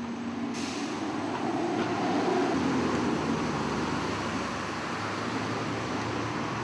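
Steady road traffic noise, an even hiss and rumble.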